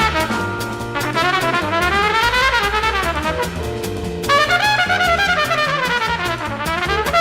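Trumpet playing fast runs of notes that sweep up and down, over a backing track with bass and drums.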